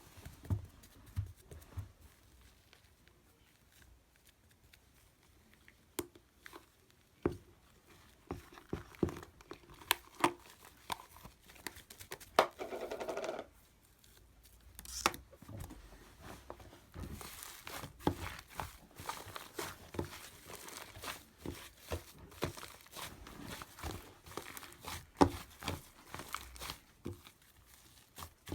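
Shaving foam being squished and handled: irregular soft crackles, crinkles and taps throughout, with a louder one-second stretch about twelve seconds in.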